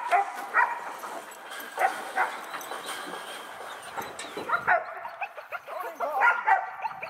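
German shepherd barking at the helper during bite-work training: single barks and quick pairs at irregular intervals, with a closer run of barks near the end.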